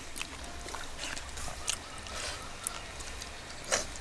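Hands squeezing and mashing soaked rice in water in a steel plate: small wet squelches, drips and clicks, with a louder short noise near the end.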